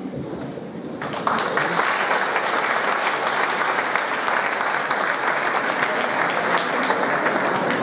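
Audience clapping. The applause starts about a second in and then runs on steadily.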